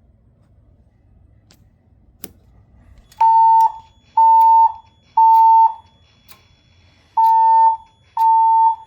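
Fire alarm voice-evacuation speakers of a Siemens Desigo Fire Safety Modular system sounding the temporal-three evacuation tone. About three seconds in, a steady high beep starts: three half-second beeps a second apart, a pause, then two more. This is the standard evacuate signal that alternates with the spoken evacuation message.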